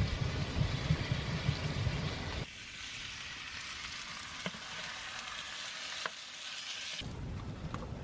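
Pork sizzling in a frying pan on a wood-burning tent stove, stirred with a wooden spoon that gives a few light ticks against the pan. A low rumble under the sizzle cuts out abruptly about two and a half seconds in, and the sizzle drops away near the end.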